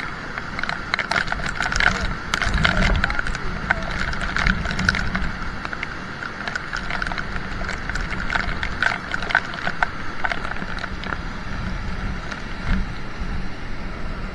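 Swollen mountain stream rushing steadily over rocks, with many small ticks of raindrops striking the phone.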